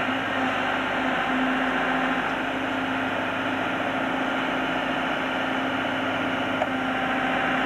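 Backhoe loader's engine running steadily under load as its hydraulic arm digs soil, with a constant hum over the engine noise.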